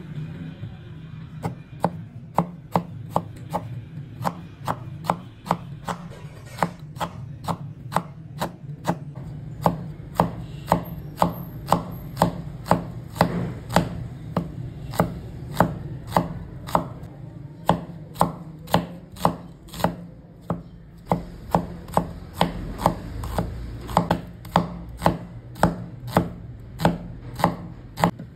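Kitchen knife slicing a red onion on a wooden cutting board: steady sharp taps of the blade striking the board, about two a second, with a short pause about two-thirds of the way through.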